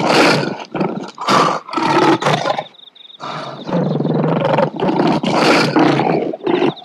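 Lion roaring and growling in a run of loud bursts, with a short break about three seconds in.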